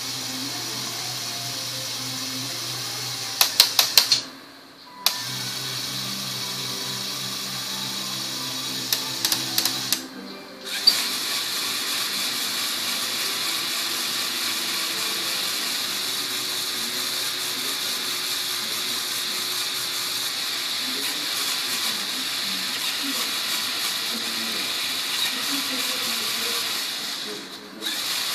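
A LEGO Technic model car's electric motors and gear train whirring steadily as they spin its wheels, with a few bursts of sharp clicking and three brief stops.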